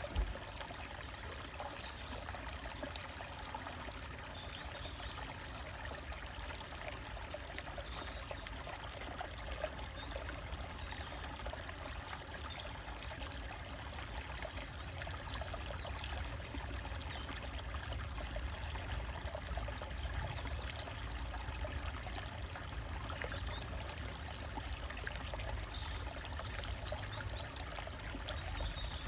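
Small woodland stream trickling and splashing over rocks, steady throughout. Birds chirp faintly now and then, and there is one short click just at the start.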